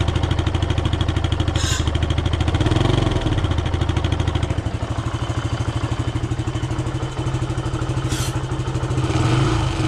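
Benelli TnT motorcycle engine idling steadily at about 2,000 rpm with nitrous being fed into its intake, with no throttle applied. Two short hisses cut in over the engine, about one and a half seconds in and again near eight seconds.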